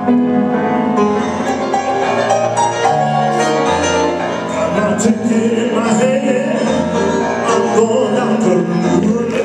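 Live jazz music: piano with a man singing, in held notes and wavering vocal lines.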